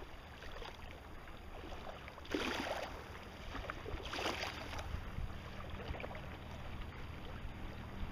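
Outdoor wind and water at a lakeshore: a steady rushing noise with two brief hissing swells, about two and four seconds in.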